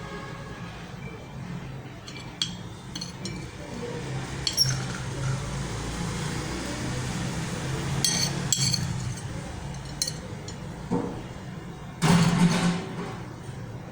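Glassware and kitchen utensils clinking a few separate times, with a louder clatter near the end.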